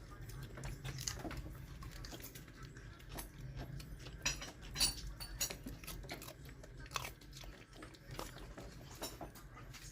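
A dog chewing and crunching raw cucumber, with many irregular crisp crunches that are loudest about four to five seconds in.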